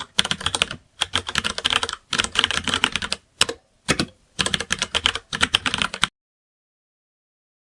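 Typing on a computer keyboard: quick runs of key clicks in several bursts with brief pauses, stopping abruptly about six seconds in, after which there is complete silence.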